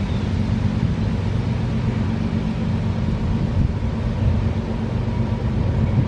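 An engine running at a steady speed: a low, even hum with a rushing noise over it.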